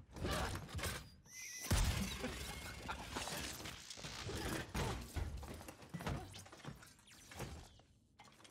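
Animated-series soundtrack effects: a woman groaning in pain, then a run of crashes and hard impacts, the loudest about two seconds in, with electricity crackling near the end as things grow quieter.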